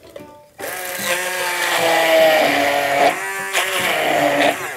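Hand-held stick blender running in a plastic beaker, puréeing boiled cauliflower with strained yogurt, garlic and mint. It starts about half a second in, stops briefly around three seconds in and runs again, its motor pitch shifting as it works through the mixture.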